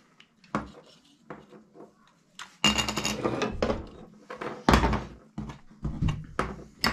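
Hard plastic parts of a cordless LED spotlight being pulled apart and set down on the workbench: a string of clicks, rattles and knocks, the loudest about two-thirds of the way in.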